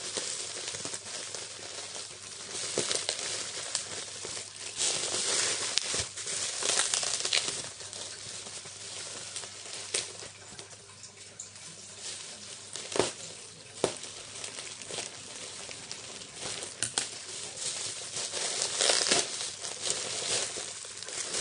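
Plastic packaging crinkling and rustling as a parcel is opened by hand, with a few sharp clicks along the way.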